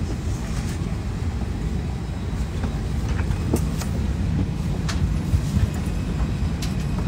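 Airliner cabin noise heard from inside the cabin: a steady low rumble, with a few light clicks in the middle.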